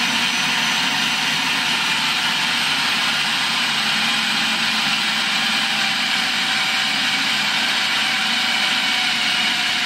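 Food processor motor running steadily with its plastic dough attachment, mixing flour and hot water into dough.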